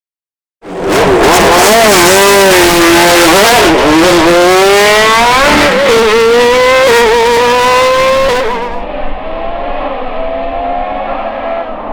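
Race car engine at full throttle, pitch climbing and dropping at each upshift. About two-thirds through it becomes much quieter and duller as it moves off.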